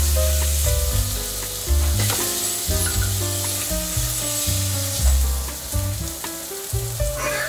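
Butter and minced garlic sizzling in a large aluminium pot, a steady high hiss. Background music with a bass line plays over it, and its bass notes are the loudest part.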